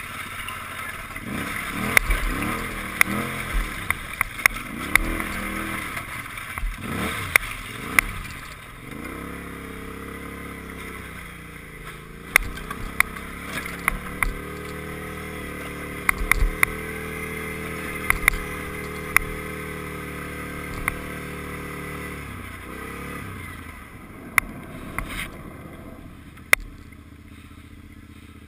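Kawasaki KFX quad's engine revving up and down over rough ice, then holding a steady speed for about twelve seconds before easing off near the end. Sharp clicks and knocks come in among it throughout.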